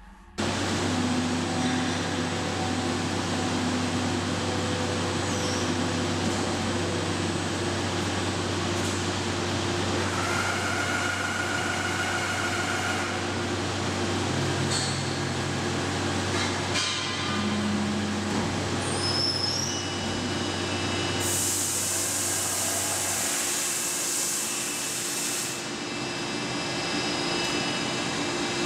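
Heavy machine-tool noise from cutting a large steel crankshaft: a steady mechanical drone with a low hum and a few short high metallic squeals. A loud hiss comes in about 21 seconds in and stops about four seconds later.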